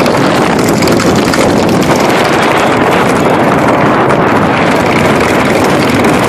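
Loud, steady rush of wind buffeting the microphone of a moving vehicle, with engine and road noise beneath it.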